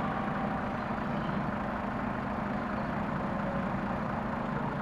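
Steady hum of heavy vehicle engines: a city bus and a truck running at low speed.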